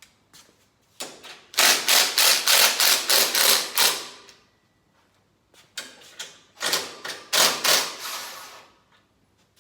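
Hammer striking sheet steel in quick blows, about five a second, in two runs with a pause between, as a steel repair strip is bent into shape.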